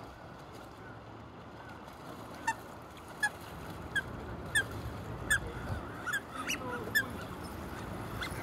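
Drake Eurasian wigeons giving short whistled calls, about eight in a row, starting about two and a half seconds in, over a low steady background rumble.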